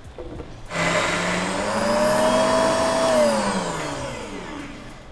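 JTC blender motor blending a latte frappe mix: it starts about a second in, its whine rising in pitch as it spins up, runs steadily, then falls in pitch as it winds down near the end.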